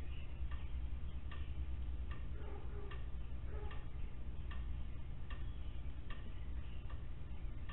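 Steady, even ticking, about one click every 0.8 seconds, over a constant low hum.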